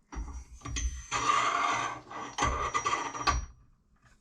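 Metal scraping and rattling, with a few sharp clunks, as a homemade fork-holding tool on a long socket extension is worked down inside a motorcycle fork tube until it engages.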